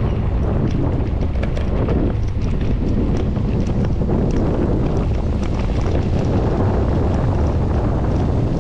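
Wind buffeting the microphone of a camera on a moving bicycle: a loud, steady low rumble, with faint light ticks scattered over it.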